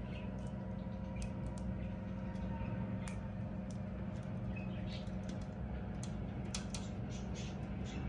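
Budgerigars chirping softly, with short, scattered squeaks and clicks over a steady low hum.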